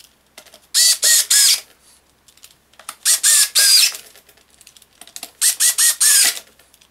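Small cordless screwdriver driving the screws of a generator's access cover, in three runs of short trigger bursts. The motor whines up and sags in pitch as each screw seats.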